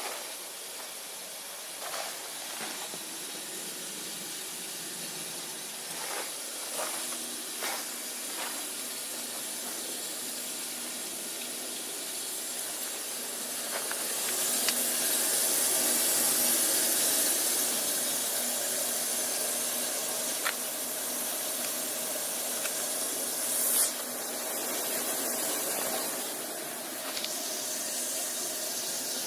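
Air-to-water heat pump unit running with a steady hiss that grows louder for a few seconds about halfway through, with a few scattered clicks.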